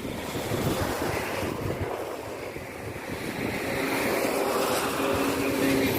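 Wind buffeting the microphone, a steady rushing noise with low gusty thumps. A faint steady hum with a few low tones comes in for the last couple of seconds.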